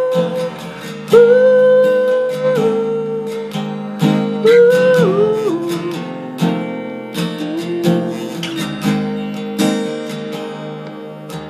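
Steel-string acoustic guitar strummed, with a voice holding long wordless notes over it, sliding up into some and stepping down through others.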